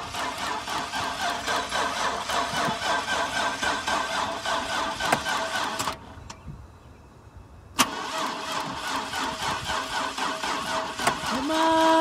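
Starter cranking the GMC Sierra's V8 with laundry detergent in its crankcase in place of oil, the engine turning over in a steady even rhythm without catching. The cranking stops for about two seconds around the middle, then starts again with a click. A short held tone sounds near the end.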